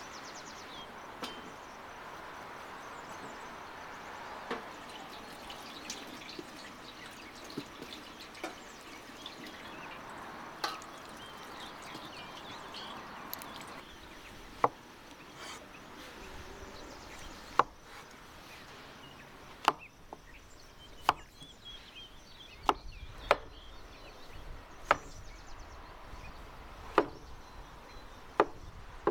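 Water splashing and dripping as button mushrooms are rinsed by hand over a metal colander. About halfway through, a kitchen knife starts chopping the mushrooms on a wooden cutting board: about nine sharp strikes, irregularly spaced a second or two apart.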